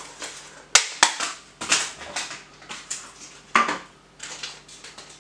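Kitchen handling noises while the butter is readied: two sharp clicks about a second in, then several short crackling, rustling scrapes.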